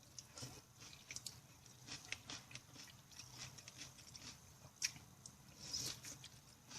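Quiet close-up mouth sounds of chewing vegetable curry: soft, irregular wet smacks and small clicks, a little louder about five and six seconds in.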